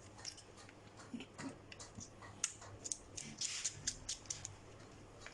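Light, irregular clicks and taps of small hand tools handling a mobile phone's parts during a mouth-speaker repair, with a short scrape about three and a half seconds in.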